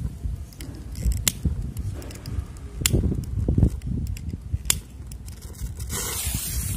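Gusting wind buffeting the microphone, a low rumble that swells and drops, with a few sharp clicks.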